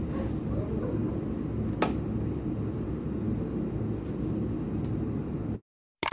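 Electric motor of a carpet machine running steadily with a mains hum, with a single click about two seconds in; the sound cuts off abruptly near the end.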